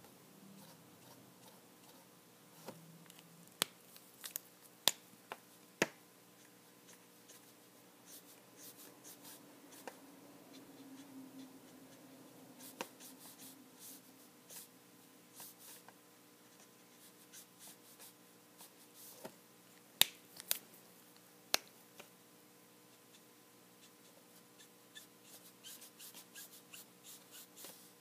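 Copic alcohol marker working on paper: faint scratching of the nib across the sheet, with scattered sharp taps and clicks as the marker touches down and is handled, a few louder ones clustered twice and a quick run of small ticks near the end.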